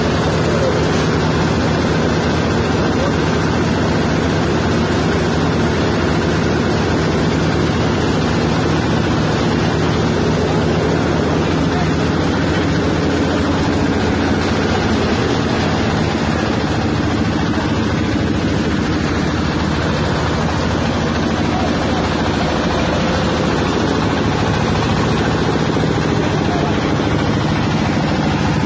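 Large peanut-shell grinding machine running steadily, a loud, even machine drone with a constant low hum.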